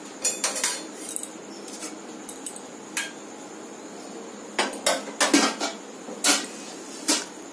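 Sharp clinks and scrapes of metal against a metal plate, in short clusters: a few about a third of a second in, one at about three seconds, a run between four and a half and five and a half seconds, and two more near the end.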